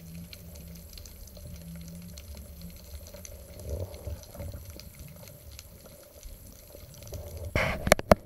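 Underwater sound heard through a diving camera while a spearfisher swims down with fins: a steady low water rumble with faint scattered clicks. Near the end, a louder rush and several sharp knocks.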